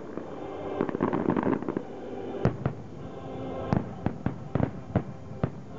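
Aerial fireworks shells bursting: a dense crackle of small reports at first, then separate loud bangs, several in quick succession about four to five seconds in.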